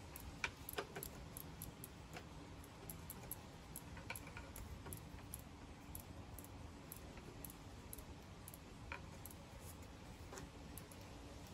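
Faint, irregular metal clicks and ticks as a pedal wrench unscrews a bicycle's right pedal counterclockwise from the crank arm, a few sharper clicks in the first second.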